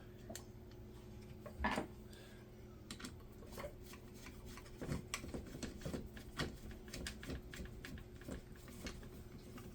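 Light, irregular clicks and taps of small plastic kit parts and screws being handled and fitted together, over a faint steady hum.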